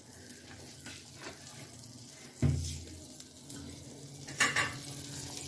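Quiet kitchen handling around an aluminium cooking pot with butter slices in its bottom: a dull thump about two and a half seconds in, and a short metallic clatter a couple of seconds later, over a faint low hum.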